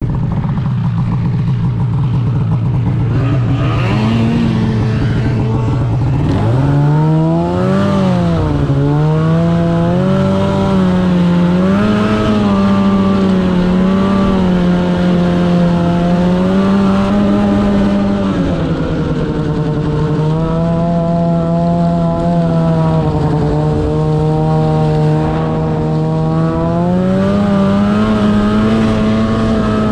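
Snowmobile engine heard close from the rider's seat, running at a low, steady pitch for the first few seconds, then climbing about six seconds in as the throttle opens and the sled gets under way. It then holds a higher pitch with small rises and dips as the throttle is eased on and off.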